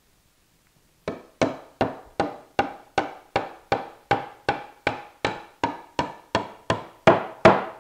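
A mallet pounding a glued table leg down into a bridle joint in the wooden skirt: about eighteen even blows, a little under three a second, each with a short wooden ring. They start about a second in and grow louder near the end.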